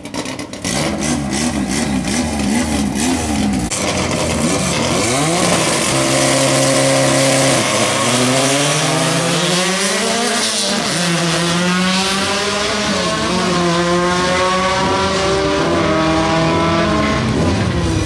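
Volkswagen Gol drag cars at the start line: engines crackling and popping against the rev limiter, then held at steady high revs. About ten seconds in they launch at full throttle, the engine pitch climbing and dropping at each gear change as they accelerate away.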